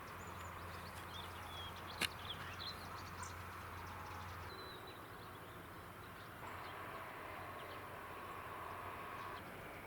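Quiet rural outdoor ambience with a few short, high bird chirps and a single sharp click about two seconds in. A faint low hum underneath stops about halfway through.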